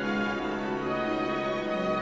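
Background music of slow, held notes, with a change of bass note near the end.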